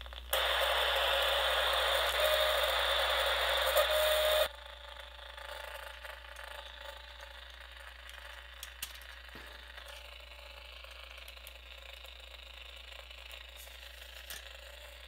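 A home-built AM/FM radio kit's speaker hissing loud static for about four seconds, then cutting off suddenly: the receiver is picking up only noise and no station. After that there is faint hiss and a few light clicks as the plastic radio case is handled.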